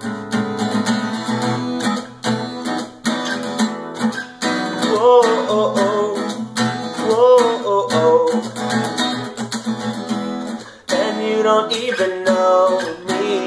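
Steel-string acoustic guitar with a capo, strummed steadily in an instrumental passage of a song. A singing voice joins in around the middle and again near the end.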